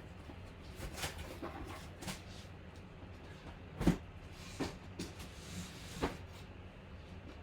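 A handful of light knocks and rustles of objects being handled on a tabletop, the loudest a dull knock about four seconds in, over a steady low electrical hum.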